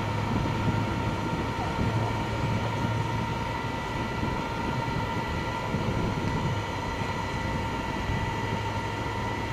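Flatbed tow truck's winch running steadily as a crashed motorcycle is pulled up the tilted bed, a steady high whine over the truck's engine hum and street traffic; the whine stops near the end.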